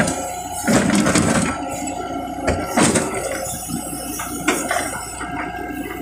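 Tata Hitachi 120 excavator digging soil: the engine runs steadily while the bucket scrapes and scoops earth, with a few sharp knocks and clanks, about a second in, near three seconds and again near four and a half seconds.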